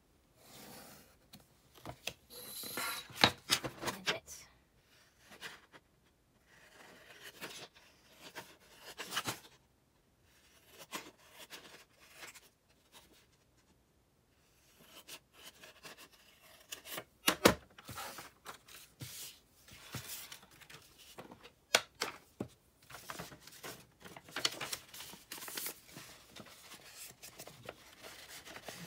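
Scissors snipping through scrapbook paper in irregular cuts, mixed with paper rustling and handling and a few sharp clicks.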